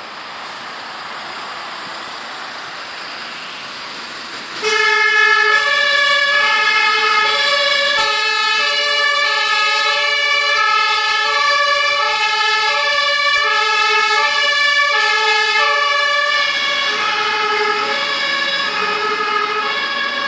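German fire-engine two-tone sirens (Martinshorn) on vehicles turning out. Vehicle noise builds for the first four and a half seconds, then a loud two-tone horn starts suddenly, switching between a high and a low note. From about eight seconds in, a second two-tone horn overlaps it out of step.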